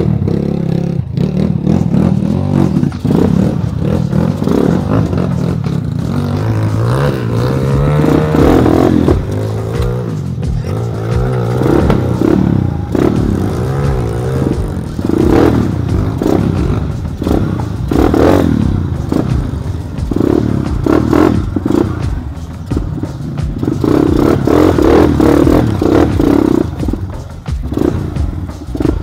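Trail motorcycle engine running hard on a rough off-road track, its revs repeatedly rising and falling, with clattering as the bike goes over the rough ground.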